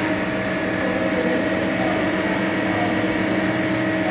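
Metal lathe running with its chuck spinning: a steady machine hum with several held tones.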